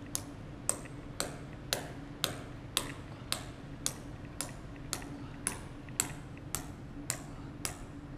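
Short sledgehammer tapping a steel anchor bolt into a drilled hole in concrete, driving it home during anchor installation. The blows come as sharp metallic taps at an even pace of about two a second, each with a brief ring.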